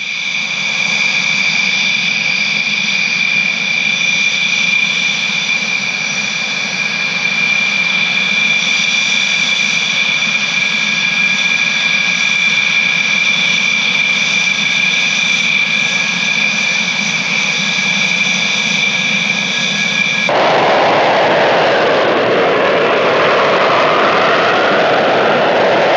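Dassault Rafale Marine's twin Snecma M88 turbofan jet engines running with a steady high-pitched whine. About twenty seconds in, the sound switches abruptly to a louder, fuller jet roar as the fighter goes to take-off power.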